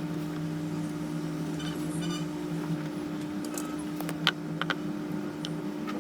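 Steady electrical hum of running workbench equipment, with a few small sharp clicks of tools on the board about four and a half seconds in.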